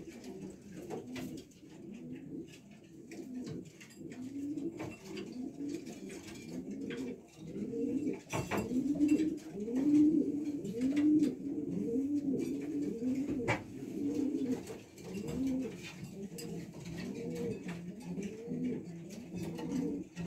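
Racing pigeons cooing over and over, low rising-and-falling coos overlapping one another, louder through the middle stretch. The birds have just been paired in their nest boxes. Two sharp clicks come partway through.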